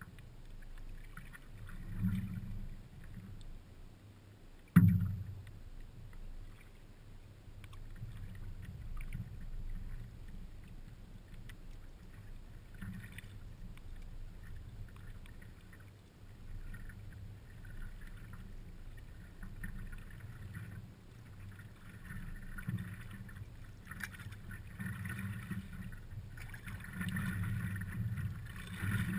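Water sloshing and lapping against a stand-up paddleboard as it is paddled across a lake, the splashing growing near the end. One sharp knock on the board about five seconds in.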